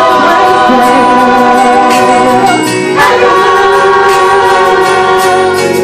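Gospel song with voices singing long held notes over instrumental backing: one sustained chord, a brief break about two and a half seconds in, then a second long held chord.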